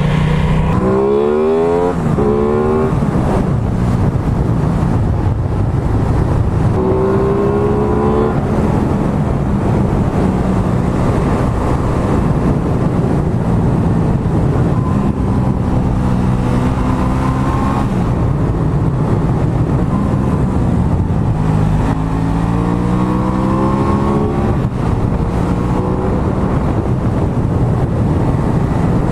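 Aprilia Tuono 660's parallel-twin engine accelerating hard, its pitch rising through the revs in several runs and dropping back at gear changes, with steadier cruising stretches in between.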